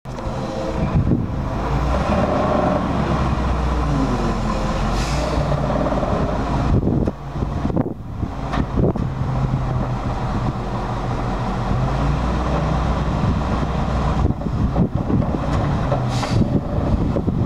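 Truck engine running, its pitch rising and falling at times, with a few sharp knocks.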